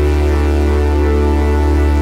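Background music: a steady, sustained electronic synthesizer pad with a strong deep bass tone.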